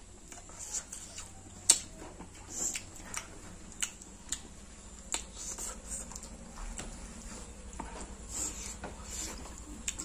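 Close-up eating sounds of rice and chicken curry eaten by hand from a banana leaf: scattered wet mouth clicks and chewing, with fingers rubbing and tapping on the leaf, one sharper click a little under two seconds in.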